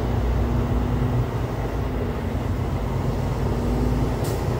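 Steady low rumble of a truck's engine and road noise heard inside the cab while creeping along in traffic, with a brief hiss about four seconds in.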